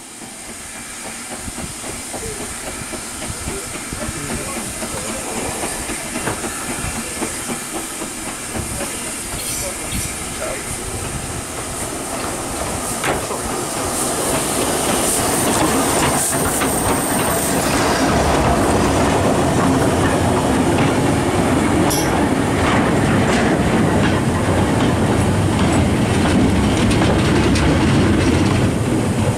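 LNER B12 4-6-0 steam locomotive 8572 approaching and passing on the adjacent track, with a hiss of steam as the engine draws alongside about halfway through. Then its wagons go by, the wheels clattering over the rail joints at the loudest point.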